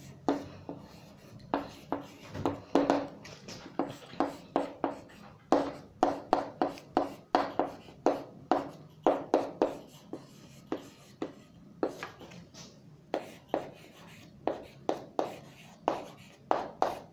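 Handwriting close to the microphone: a long run of short scratchy strokes and taps in irregular bursts as an equation is written out.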